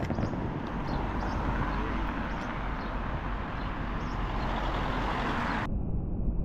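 Steady vehicle noise with a strong low rumble. About five and a half seconds in it abruptly turns duller, as the high end drops away.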